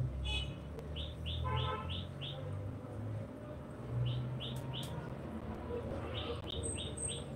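A bird chirping in three quick runs of short, high notes, about four a second, over a steady low hum.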